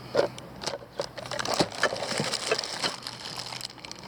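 Plastic packaging crinkling and rustling as the metal detector's stem parts are unwrapped and handled, with irregular small clicks and knocks.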